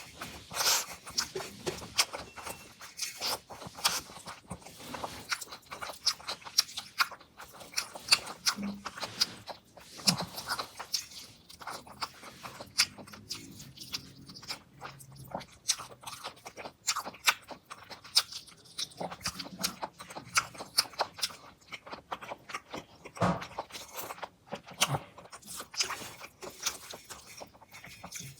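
A person eating fish curry and rice close to the microphone: continuous chewing and mouth smacking with many short crunchy clicks.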